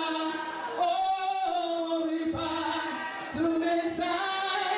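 A woman singing into a microphone, with a group of women and men singing along in long held notes.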